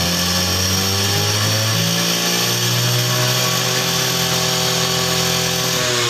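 Small two-wheeler engine running just after being kick-started, with an even note whose pitch rises a little and then holds steady.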